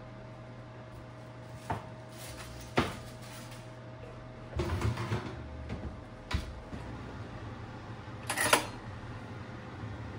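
Kitchen handling sounds over a steady low hum: knocks and a short rattle as a foil-covered pie dish is lifted off the metal oven rack and set on the glass cooktop, the oven door shutting about six seconds in, and a louder clatter near the end.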